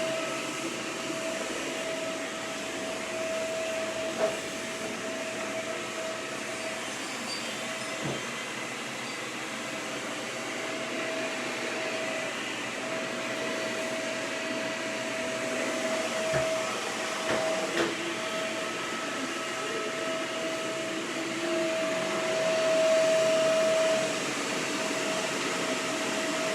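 Shark vacuum cleaner running steadily on a test run after being cleaned out, its motor giving a continuous whine over a rushing airflow, with a few light knocks as it is handled.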